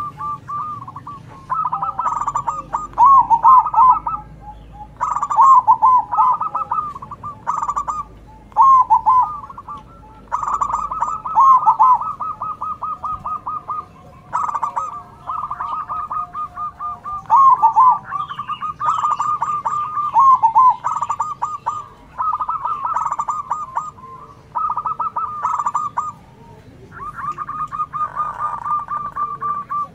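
Zebra doves (perkutut) cooing their staccato manggung song, phrase after phrase every couple of seconds, several birds calling back and forth.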